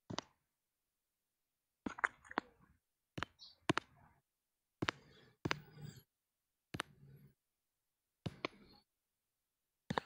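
A series of sharp clicks, about ten of them, some in quick pairs, each followed by a brief faint hiss and then cut off to dead silence.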